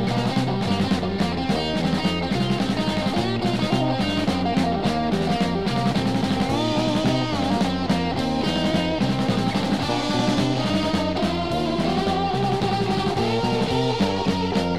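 Instrumental jazz-rock recording: electric guitar over a busy drum kit in a dense, steady band texture. Held melody notes step upward in the later seconds.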